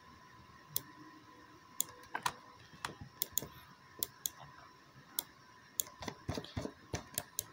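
Computer mouse clicking, about a dozen sharp single clicks at uneven intervals, bunched closer together near the end, as curve points are placed one by one in a CAD program. A faint steady high-pitched hum runs underneath.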